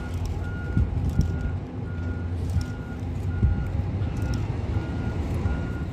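A vehicle's reversing alarm beeping at an even pace, about three single-pitch beeps every two seconds, over a low rumble.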